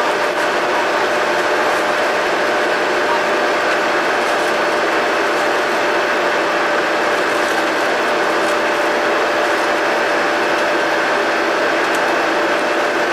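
Double-decker bus engine running steadily under a constant whine, recorded on board.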